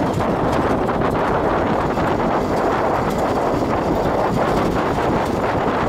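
Wind buffeting the microphone over the steady running of a safari vehicle, recorded from its open roof hatch, with a few faint clicks.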